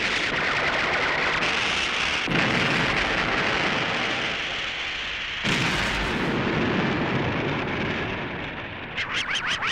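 Television sound effects of jet fighters firing missiles: a steady rushing hiss, broken by sudden blasts about two seconds in and again about five and a half seconds in. Near the end comes a rapid stutter of about eight pulses a second.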